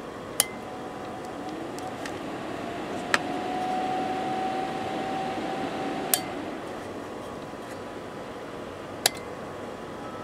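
Four sharp clicks, about three seconds apart, as the functions of an H4 remote control unit are switched in turn. A faint steady tone sounds from the first click until the third.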